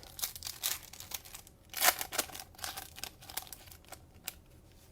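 Cellophane wrapper of a trading-card cello pack being torn open and crinkled, with the cards slid out, in a run of sharp crackles, loudest about two seconds in.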